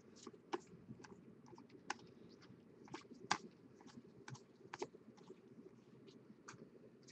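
Faint, irregular clicks and slides of baseball trading cards being flipped off a stack by hand, one card after another, with one louder click about three seconds in.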